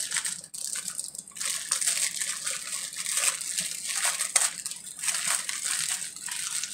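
Clear plastic bag crinkling as it is handled: irregular, crackly rustling over a steady hiss.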